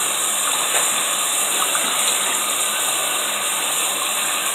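Bathroom sink tap running steadily, water gushing into the basin while a face scrub is rinsed off.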